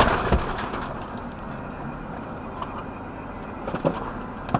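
The dying tail of a vehicle collision's crash, with one short knock just after it. Then a steady low vehicle hum with a few faint clicks near the end.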